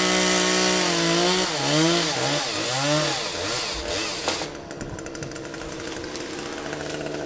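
Chainsaw revved to full throttle, holding high, then dipping and rising a few times for about three and a half seconds before dropping back to a lower, quieter idle.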